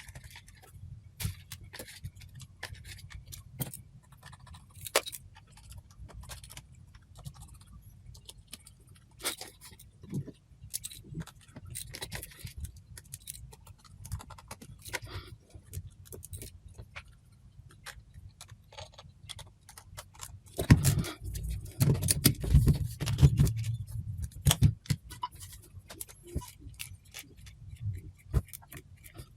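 Small clicks, taps and scrapes of a Samsung NX1000 camera's plastic and metal parts being handled and fitted back together during reassembly, with a denser run of louder knocks and handling bumps about two-thirds of the way through.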